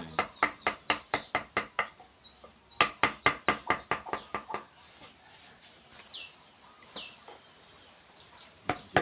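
Wood-carving chisel driven by a mallet: quick, even knocks about four a second in two runs, the second stopping a little under halfway through. A bird chirps a few times near the end.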